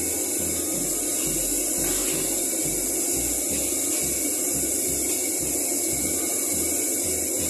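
Commercial gas wok range running: water pouring steadily from the range's faucet into a pot, over the steady hiss of the burners. A low throb pulses about three times a second underneath.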